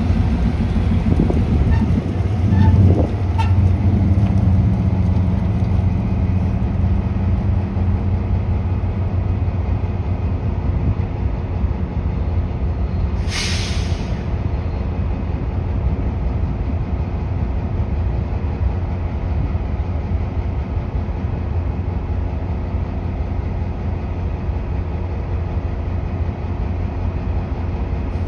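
CSX GP38 diesel locomotives idling with a steady low rumble. A road vehicle passes close by about two to three seconds in, and a short hiss of air breaks out about 13 seconds in.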